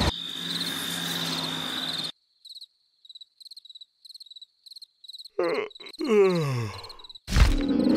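Cartoon night ambience: a steady high tone over a faint hiss, then a cricket chirping in short, regular trills. About five and a half seconds in, the cartoon larva gives a long yawn that falls in pitch. A loud sound cuts in near the end.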